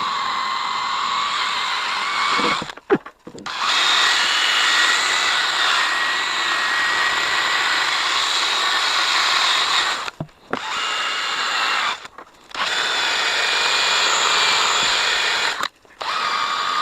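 Handheld electric drill running against a taillight lens in spurts, stopping briefly four times and restarting. It runs at a higher pitch after the first restart.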